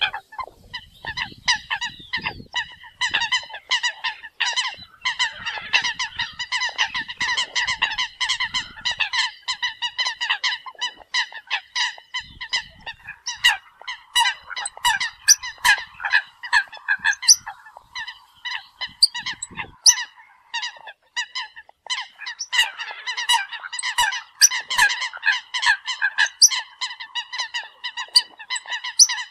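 A flock of Eurasian coots calling: many short, sharp calls overlapping in quick succession, thinning out briefly about two-thirds of the way through.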